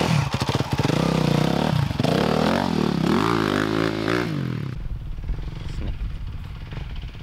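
Dirt bike engine revving up and down several times as the bike pulls away over dirt, then much fainter from about five seconds in.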